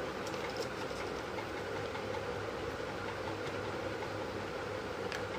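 A steady background hum, with a few faint soft clicks and rustles of folded paper petals being handled and glued with a glue stick.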